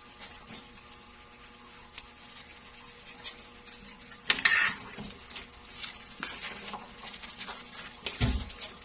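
Metal spatula knocking and scraping against a large metal pan of pork hocks and taro in water as it is stirred, starting with a sharp clatter about four seconds in, followed by smaller clinks and a dull knock near the end. Before the clatter there are only faint scattered ticks.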